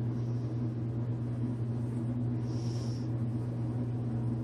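Steady low electrical hum of a running kitchen appliance, with a few brief soft hisses over it.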